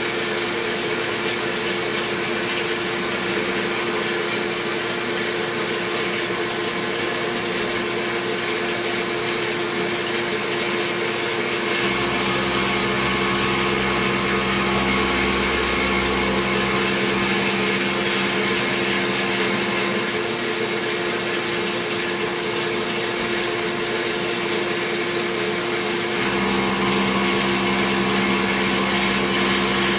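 CNC milling machine side-roughing a metal block with a long end mill: the steady whine of the spindle and cut under the hiss of mist coolant spray. A deeper hum joins about twelve seconds in.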